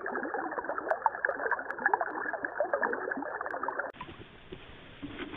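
Shallow river water rushing and splashing over rocks. It cuts off sharply about four seconds in, leaving a much quieter background with a few faint splashes.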